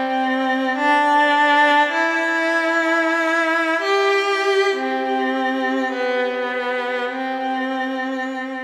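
Slow instrumental music of long held bowed-string notes: a violin line over a lower sustained note, both moving to new pitches every second or two.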